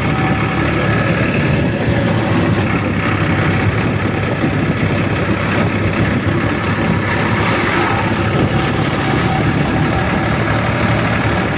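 Steady running noise of a road vehicle, engine and road noise together, holding an even level throughout.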